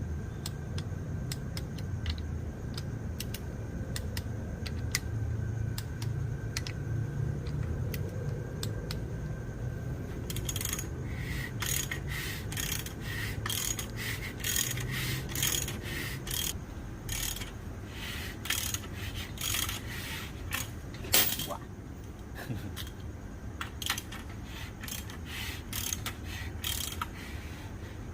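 Metal parts or tools clinking and tapping: a quick run of sharp metallic clinks with a short ring, starting about ten seconds in over a low rumble, with one louder clank a little past the middle.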